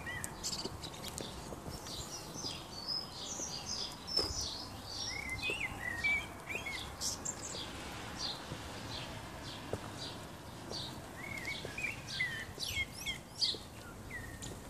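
Small birds chirping and singing, a run of short high calls about four to seven seconds in and again near the end, over steady outdoor background noise.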